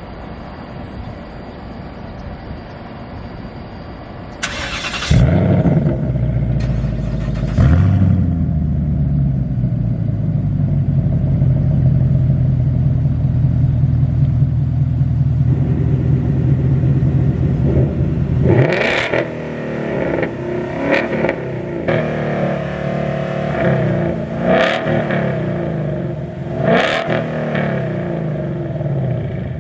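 A V8 car with a modified exhaust starts up with a loud flare of revs, settles into a steady idle, then is revved in about five short, sharp blips.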